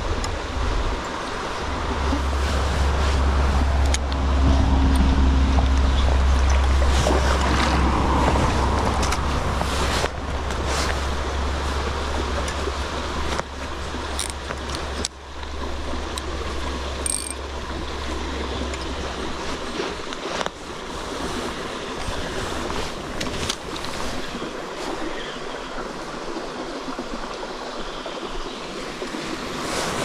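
Small forest stream running and splashing, with a deep steady rumble under it for most of the first two-thirds that drops away about twenty seconds in, and a few sharp clicks and knocks.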